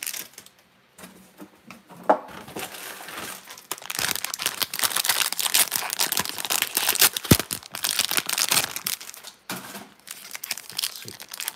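Clear plastic sleeve and foil wrapper of a Pokémon booster pack crinkling and tearing as they are pulled open by hand: a dense crackle from about two seconds in that dies down near the end, with one sharp click partway through.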